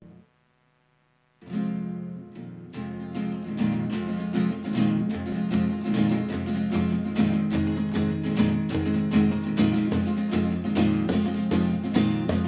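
Acoustic guitar strumming chords in a steady rhythm. It starts about a second and a half in, after a brief near-silence, with two ringing chords before the regular strumming settles in.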